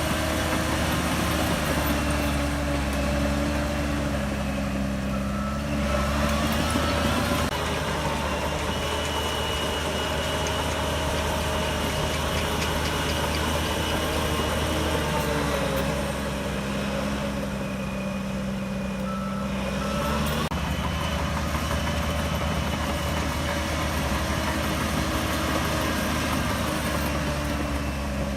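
Shantui DH17C3 bulldozer's diesel engine running steadily under working load, its note shifting a few times as the load changes. A reversing alarm beeps briefly a few times.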